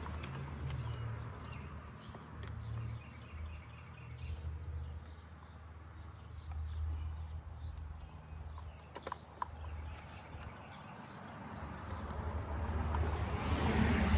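Scattered light clicks and knocks of parts being handled and fitted on a Stihl FS 45 string trimmer during reassembly, with one sharper click about nine seconds in, over a low steady rumble.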